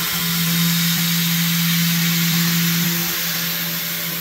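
PrintNC CNC router spindle running steadily with a constant hum while a chamfer tool cuts a light finishing pass on a 6061 aluminium part, over a steady hiss of air from the coolant nozzles.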